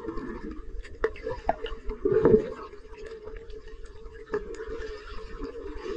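Muffled underwater sound picked up by a camera while snorkeling: a steady dull wash with scattered sharp clicks, and a louder bubbling gurgle about two seconds in.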